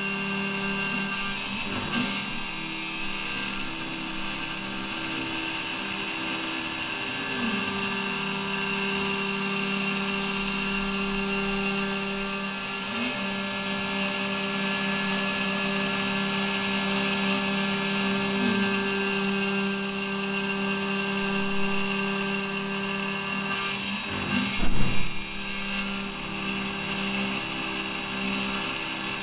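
CNC milling machine cutting aluminium with a small end mill under coolant: a steady machining whine made of several held tones, with a harsh high cutting hiss on top. About 25 seconds in there is a short, louder burst.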